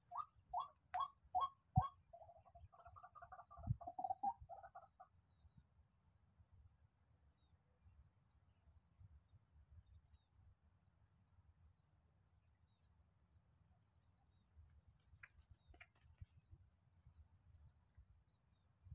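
A rail's call: a run of short rising notes about three a second, then a quick chattering trill that stops about five seconds in. After that only faint low noise and a thin steady high hiss remain.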